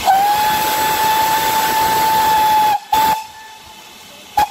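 Steam whistle of GWR Manor-class 4-6-0 locomotive 7827 'Lydham Manor': one long, steady blast of nearly three seconds, a short second toot right after it, and a brief pip near the end, over the hiss of steam.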